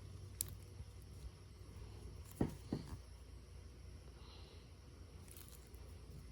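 Slime being handled by hand, faint and soft, with a few short sticky pops and clicks, the loudest pair about two and a half seconds in.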